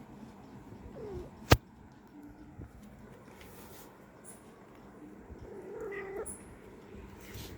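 Cats meowing: a short falling meow about a second in and a longer meow around six seconds in, with a few softer calls between. A sharp click about a second and a half in is the loudest sound.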